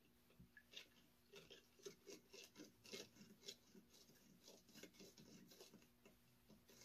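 Faint, irregular clicking and scraping of a metal spoon against a small plastic cup as coffee is stirred to dissolve sugar.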